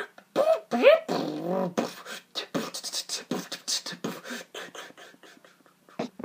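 A man beatboxing dubstep with his mouth alone: pitched vocal bass sounds that slide up and down for about the first two seconds, then a fast run of short, sharp drum-like mouth hits that tapers off near the end.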